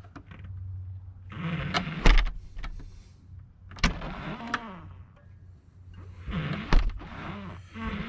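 Baldwin door thumb latch being worked by hand: three sharp clicks with creaking of the latch mechanism between them. The latch isn't springing back all the way.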